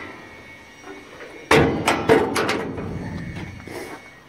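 Steel greyhound starting box door slamming shut: one loud metal bang about a second and a half in, followed by a few rattling knocks that fade away.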